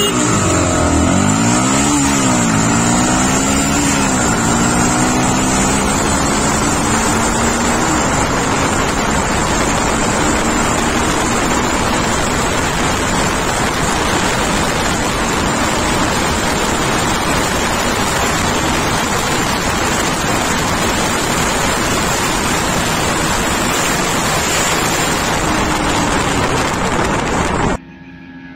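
Single-cylinder motorcycle engine accelerating hard from a launch. Its pitch rises and falls at two quick gear shifts, then climbs more slowly for several seconds. After that a heavy wind rush on the onboard microphone buries the engine, and the sound cuts off suddenly near the end.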